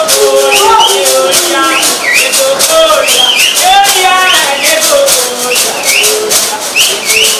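Kikuyu traditional dance song: a group of voices singing over a steady, rhythmic rattling of shakers that keeps the beat.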